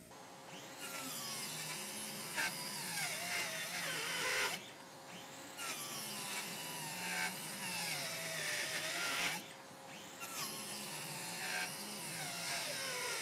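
Parkside cordless circular saw running on its 2Ah battery, cutting through two stacked 18 mm plywood sheets. There are three cutting runs of a few seconds each with short pauses between them. The motor's whine wavers and sags in pitch under the load.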